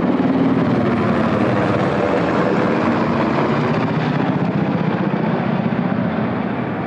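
Aircraft passing low overhead: a loud, steady drone that slowly fades over the last few seconds.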